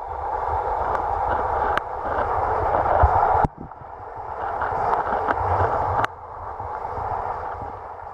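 Water rushing and gurgling past a camera held underwater against a Prijon Marlin sea kayak's hull as the boat glides. The rush drops off suddenly about three and a half and six seconds in, then builds back up each time.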